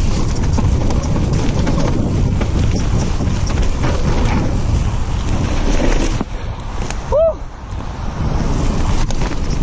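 Wind buffeting the microphone and a mountain bike's tyres rumbling over a muddy trail at speed, with knocks and rattles from the bumps. It eases briefly about two-thirds through, when there is one short squeak that rises and falls in pitch.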